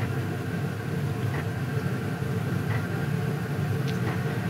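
Diesel parking heater running: a steady low hum from its fan and burner, with a light tick from the fuel pump about every second and a half.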